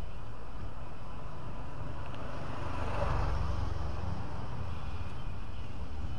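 Street ambience with a motor scooter's engine approaching, over a steady low rumble; the engine sound swells about halfway through.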